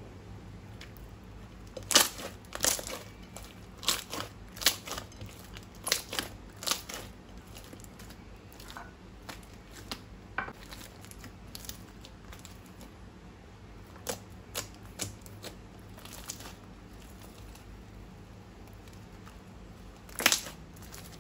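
Sharp, irregular crackles and crinkles from hands working crunchy slime and its plastic materials, coming in clusters with quieter stretches between.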